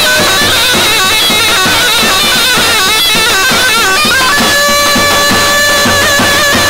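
Loud, shrill reed wind-instrument melody over a steady drumbeat, playing a line-dance (halay) tune. The melody is busy and ornamented at first, then settles onto long held notes about four seconds in.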